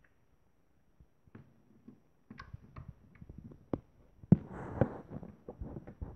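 Sticky slime being squeezed and pulled apart by hand, giving a run of small clicks and pops. They are sparse at first and get busier past the halfway point, with a louder squish a little after four seconds.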